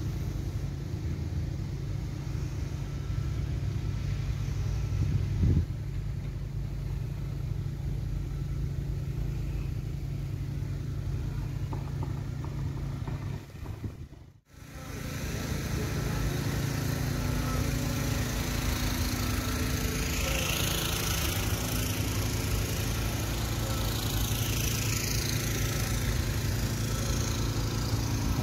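A steady motor-vehicle engine hum. It drops out briefly about halfway through, then returns with more hiss on top.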